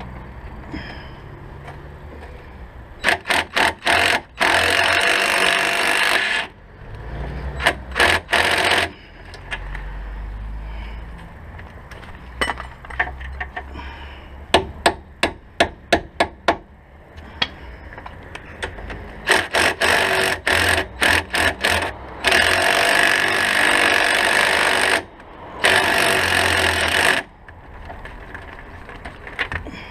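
Hand hammer blows in quick runs of several strikes, knocking at a seized part to free it, broken by a few longer hissing stretches of a second or two.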